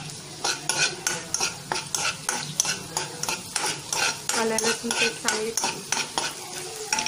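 Flat metal spatula stirring and scraping ginger-garlic paste frying in hot oil in a kadai: quick scrapes against the pan, about three a second, over a light sizzle.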